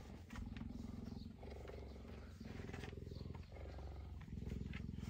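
Cheetah purring close by: a steady low rumble that runs in stretches of about a second, with short breaks as it breathes in and out.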